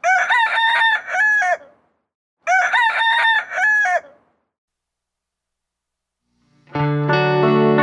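A rooster crowing twice, two full cock-a-doodle-doos about a second and a half each, separated by a short pause. Near the end, guitar music starts.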